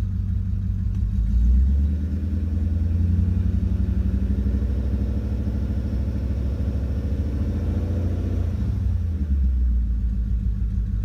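BMW E39 540i's 4.4-litre V8 running with a freshly replaced water pump and the fan blades removed, while the cooling system is being bled. About a second and a half in it is brought up to a higher, held engine speed, and it drops back to idle near the end.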